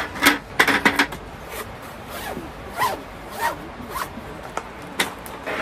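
A zipper being pulled in a series of short strokes, several close together in the first second and then more spaced out.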